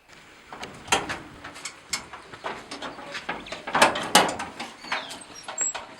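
Irregular knocks, clicks and rattles of a door and of objects being handled, loudest about one and four seconds in, with a short falling bird call about five seconds in.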